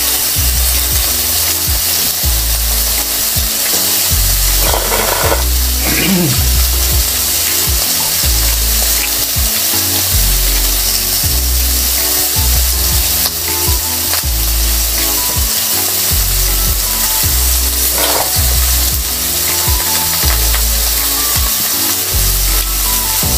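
Lamb chops sizzling steadily on a hot grill pan.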